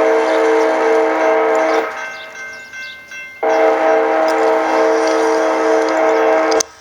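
Multi-note air horn of the lead BNSF ES44C4 diesel locomotive sounding two long blasts. The first blast ends about two seconds in; the second starts about a second and a half later and cuts off sharply near the end.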